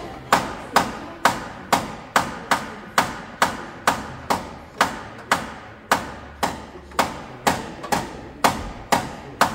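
Hammer blows on metal at a steady rhythm of about two a second, each ringing briefly: panel-beating on the crash-damaged front end of a car.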